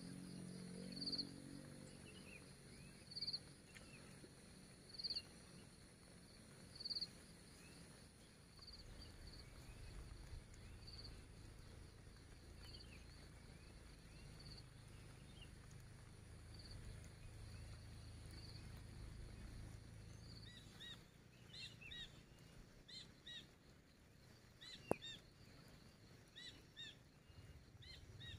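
Faint outdoor forest ambience. A short high chirp repeats about every two seconds, then several birds chirp in the last third, with one sharp click near the end.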